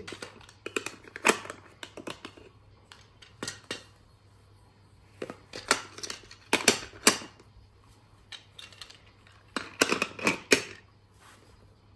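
Plastic puzzle-game pieces clicking and tapping as road tiles are picked up and fitted onto a plastic game board. Sharp clicks come in small clusters, near the start, around three and a half seconds, around six to seven seconds and around ten seconds, with quiet gaps between.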